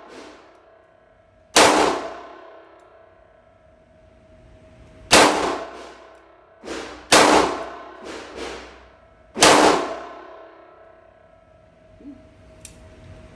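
Shots from a Smith & Wesson Model 642 snub-nosed .38 Special revolver in an indoor range lane. Four loud shots come over about eight seconds, with a couple of fainter cracks between them, and each rings on in the concrete-block room.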